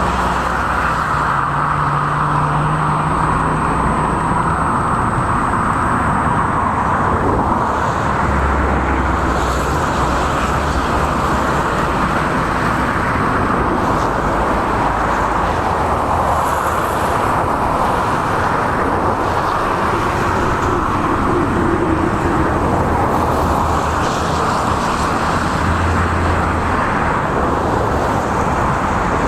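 Steady road traffic noise from cars crossing a road bridge, with low rumbles of passing vehicles coming and going.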